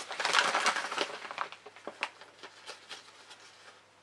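Packaging crinkling and rustling as an item is unwrapped by hand, busiest in the first second and a half, then thinning to scattered light rustles and ticks.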